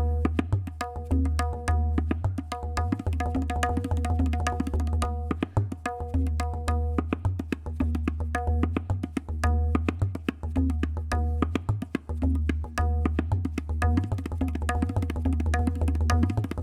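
Tabla played in a fast, repeating phrase of dha, tit and getetaga strokes. The bayan gives deep, sustained bass ge strokes under the ringing, pitched strokes of the dayan, in a dense, even rhythm.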